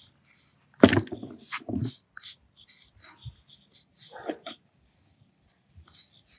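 Sidewalk chalk scratching in short strokes on concrete as numbers are written, with a brief louder whine-like sound about a second in.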